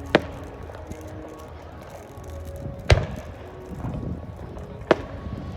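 Fireworks shells bursting: three sharp bangs about two and a half seconds apart, the middle one loudest.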